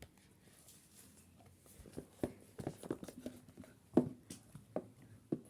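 Irregular sharp taps and clicks of hard objects being handled, starting about two seconds in, the loudest about four seconds in.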